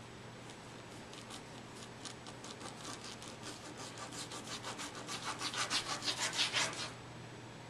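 A pencil scribbling quickly back and forth on paper laid over a wooden table, about four scratchy strokes a second. The strokes grow louder and stop abruptly near the end.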